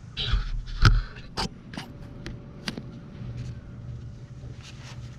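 Handling noises while working under a truck: a brief rustle, then a handful of sharp clicks and taps of metal parts and tools. The loudest comes about a second in, and a few fainter ones follow.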